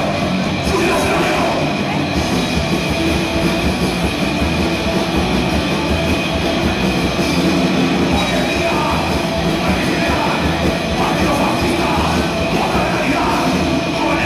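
Oi! punk band playing live at full volume: distorted electric guitars, bass and drums in a steady, unbroken stretch of a song.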